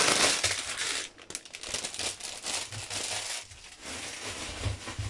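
Clear plastic film crinkling as a bundle of bagged diamond-painting drills is unwrapped and handled. It is loudest at the start, then goes on in shorter, irregular rustles that grow fainter.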